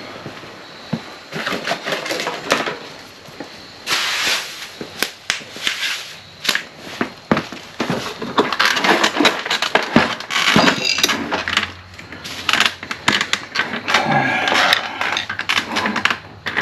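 Irregular plastic clicking, knocking and scraping as the storage bin in a Harley-Davidson lower fairing is prised loose and pulled out. The handling rattles get busier in the second half.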